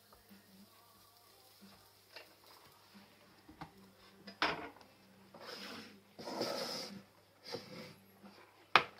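Kitchen utensil handling: a few light clicks, a sharp knock about halfway, then scraping and clinking as a metal spoon works wafer batter in a mixing bowl. A sharp clack just before the end is the loudest sound. A faint steady hum runs underneath.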